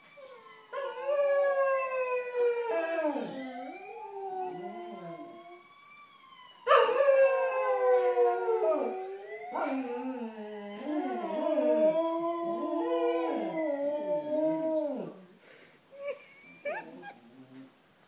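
Cocker spaniels howling, set off by an ambulance siren: several long, sliding howls that overlap, loudest about a third of the way in. They die away near the end into a few short yips.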